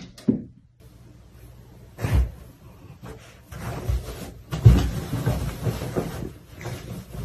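A series of thuds and knocks with rustling and clatter in between, the loudest thud about halfway through.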